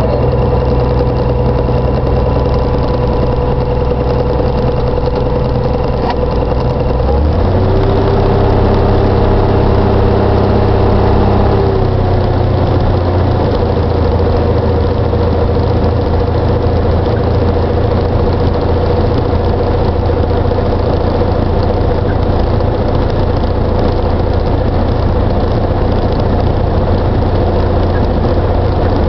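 Jabiru 3300 six-cylinder air-cooled aero engine of a Thorp T-211, heard from the cockpit. It runs steadily, picks up speed about seven seconds in, shifts again around twelve seconds, then holds a steady note.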